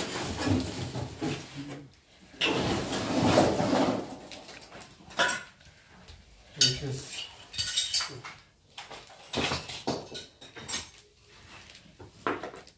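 Irregular clatter of hard objects being handled: a longer rattling stretch a couple of seconds in, then several separate sharp knocks and clinks.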